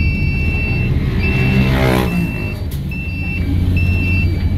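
Electronic door-warning chime on a high-floor Transjakarta bus, repeating a high two-tone beep (a longer upper note, then a lower one) a little more than once a second: the long chime sequence these buses play before the doors open. Underneath runs the steady drone of the bus engine, and about two seconds in an engine briefly rises in pitch.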